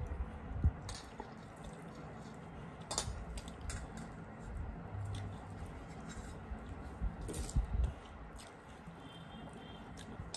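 Wet squelching of bare fingers kneading rice and fish curry on steel plates, with scattered small clicks and smacking mouth sounds of eating.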